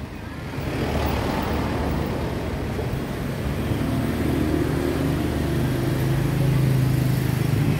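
Street traffic: a motor vehicle's engine running steadily close by, a low hum that grows a little louder toward the end, over general road noise.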